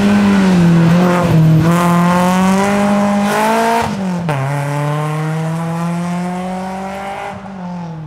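BMW E36 race car's engine running hard as the car passes and pulls away. The pitch climbs, drops sharply about four seconds in, then holds nearly steady while the sound fades toward the end.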